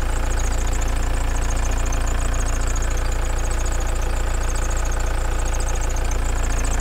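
1987 VW camper's turbocharged engine idling steadily, an even, generator-like idle with a fast, regular ticking beat.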